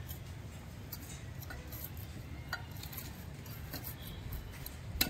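Small metal hand trowel scraping and tapping in soil and against a plastic pot while filling it, with scattered light ticks and a few sharper clinks near the end.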